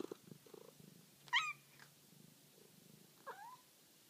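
Domestic cat purring close up, with two short chirping calls: a high wavering one just over a second in, which is the loudest sound, and a lower, shorter one about three seconds in.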